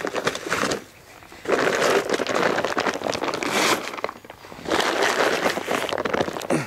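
Plastic manure bags rustling and crinkling as they are handled and lifted out of a trailer, in three long bursts with short pauses between.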